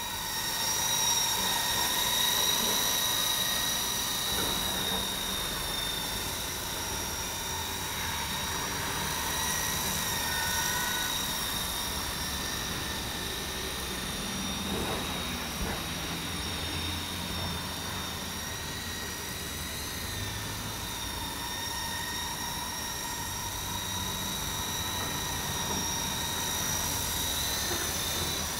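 E-Sky Lama V4 electric coaxial RC helicopter in flight: a steady high-pitched whine from its electric motors and rotor gearing, swelling slightly and easing as it moves about.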